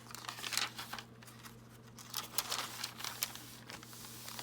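Paper pages of a handmade junk journal rustling and crinkling as they are handled and flipped, in irregular light crackles over a steady low hum.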